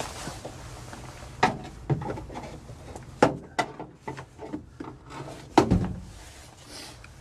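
Door panel retaining clips on a 1972 Volkswagen bus front door snapping loose as the panel is pried off with a screwdriver: a series of sharp clicks and knocks, the loudest about five and a half seconds in.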